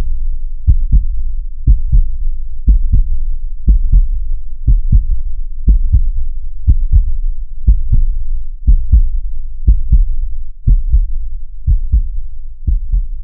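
Heartbeat sound effect: deep double thumps (lub-dub), about one pair a second at a steady pace, starting suddenly out of silence.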